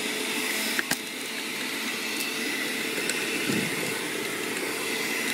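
Electric juicer motor running steadily with juice running out of its spout, and one sharp click about a second in.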